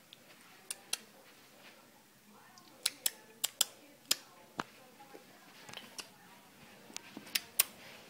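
About a dozen sharp, irregular clicks and taps, several in quick succession about three seconds in and again near the end.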